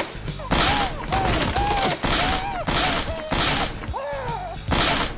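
A rapid string of high-pitched kung-fu battle cries, about eight in five seconds. Each cry comes with a sharp hit of a punch or kick.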